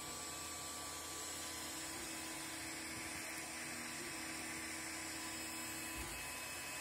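Creality Ender 3 Pro 3D printer running a print: steady whir of its cooling fans with the whine of the stepper motors as the print head moves. A low whining tone stops about six seconds in.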